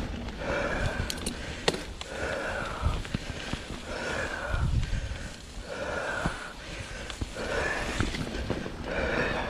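Mountain biker breathing hard into the helmet camera's microphone, a heavy breath about every two seconds, over the low rumble of tyres on the trail and a few sharp clicks and knocks from the bike.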